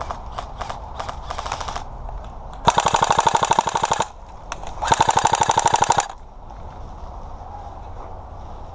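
Airsoft guns firing: a few single shots and a short rapid string, then two loud full-auto bursts of about a second each, the second starting about a second after the first ends.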